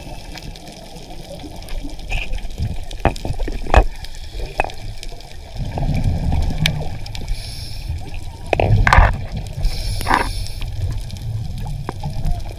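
Underwater sound picked up by a diver's camera: a steady muffled rumble of water with scattered sharp clicks, and two louder gurgling gushes about three-quarters of the way through.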